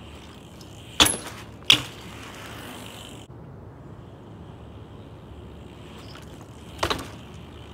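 BMX bike jump landing on pavement: two sharp impacts about a second in, a little under a second apart, followed briefly by tyres rolling. Another knock comes near the end.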